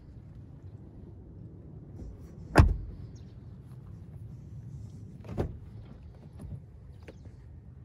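Cupra Formentor's rear door shut with one solid thud about two and a half seconds in. A lighter clunk follows a few seconds later as the front door is unlatched and opened, with a couple of faint clicks after it.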